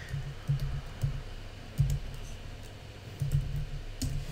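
Typing on a computer keyboard: short runs of keystrokes with pauses between them.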